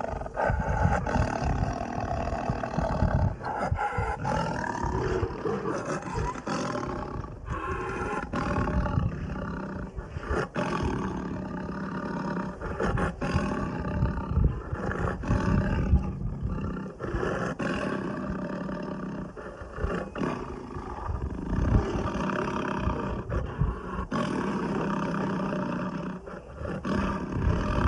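Lion roaring and growling in a long run of deep, rough roars, broken by many short pauses and abrupt breaks.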